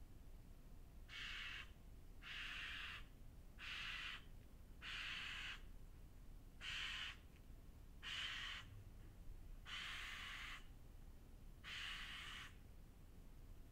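A crow cawing repeatedly: eight harsh caws, each about half a second long, spaced roughly a second and a half apart.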